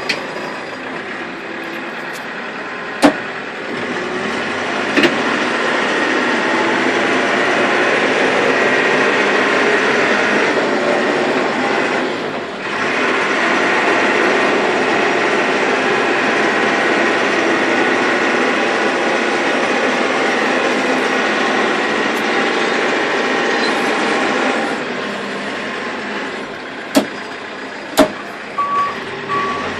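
Cat 416C backhoe loader's diesel engine running and then revving up under hydraulic load about four seconds in. It holds high for some twenty seconds, dips briefly near the middle, then drops back to a lower speed. A few sharp knocks sound, and a steady reversing beeper starts near the end.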